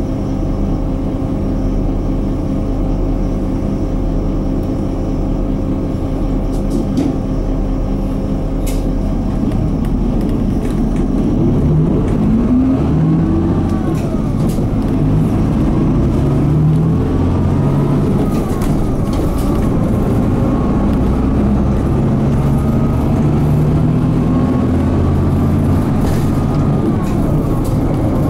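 Mitsubishi Fuso Aero Midi MK bus's 6M61 inline-six diesel heard from inside the cabin, idling steadily for about the first nine seconds. It then pulls away, the engine note rising and dropping back in steps through early upshifts of the five-speed manual gearbox.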